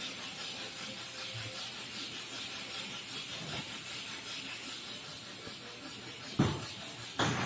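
Soda dispenser hissing steadily, with two short knocks near the end.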